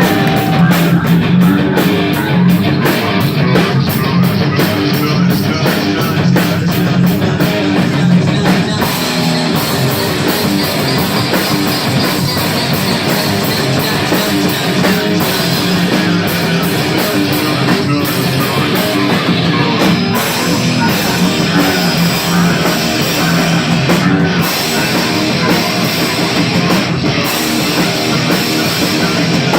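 Rock band playing live, with guitar and drum kit, loud and continuous.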